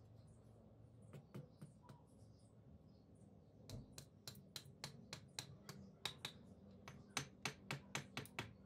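Faint, sharp taps of a hammer's handle end on a freshly laid brick, bedding it into the mortar: a few scattered taps, then a quick run of about four taps a second from a few seconds in.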